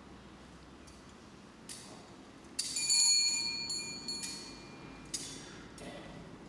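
Altar bell rung during the consecration in a church: one clear ringing strike about two and a half seconds in that fades slowly, among several lighter metallic clinks.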